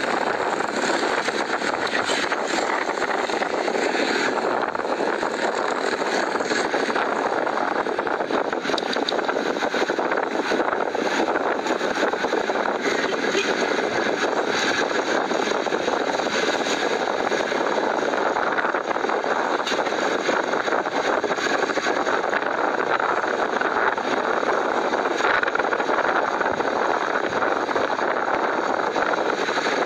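Steady running noise of a moving vehicle: engine and road noise, even in level throughout.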